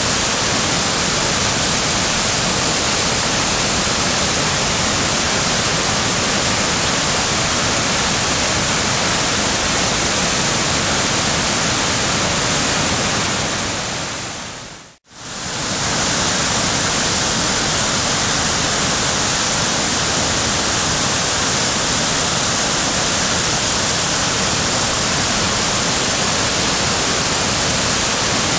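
A steady, loud rushing hiss with no rhythm or pitch, fading out to silence about halfway through and fading back in.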